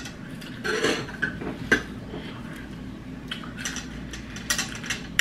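A spoon clinking and scraping against a cereal bowl in a few scattered, sharp strikes.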